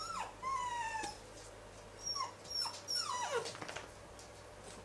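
Black Labrador puppy whining: high, falling whimpers, one drawn-out cry in the first second and several short ones from about two to three and a half seconds in.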